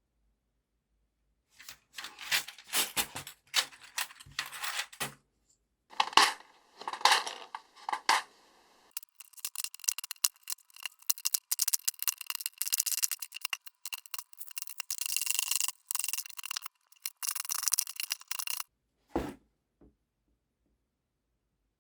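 Vintage mechanical keyboard being taken apart: rapid clicking, scraping and clattering of small plastic and metal parts in several runs, with one dull knock near the end.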